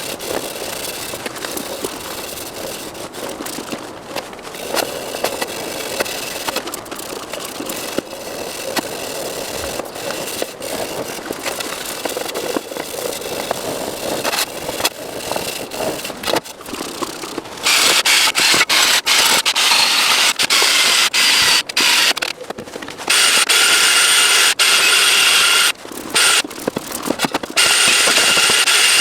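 Workshop tool noise: scraping with frequent clicks, then, from about two-thirds of the way in, a loud hissing tool with a faint whine run in bursts of several seconds with short pauses.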